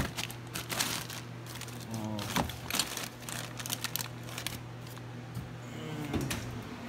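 Rummaging through a drawer of parts: plastic bags crinkling and small metal parts clicking and clattering, over a steady low hum.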